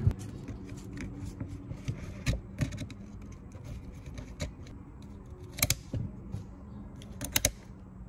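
Shifter cable ends and their hard plastic fittings being handled and twisted on the shifter base, giving scattered small clicks and knocks. A sharper click comes about two-thirds of the way through, and a quick run of sharp clicks near the end.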